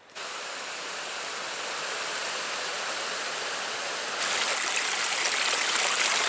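Forest stream rushing with a steady water noise. It cuts in suddenly and grows louder about four seconds in.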